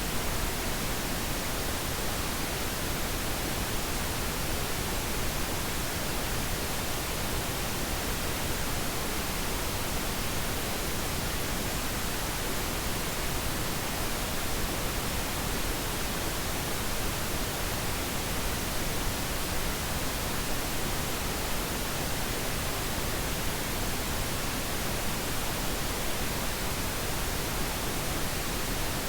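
Steady pink noise: an even, unbroken hiss across the whole range of pitch, played as a sleep aid for babies.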